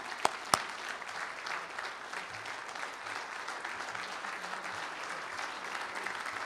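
Audience applauding steadily, with a few sharp, loud claps close to the microphone in the first second.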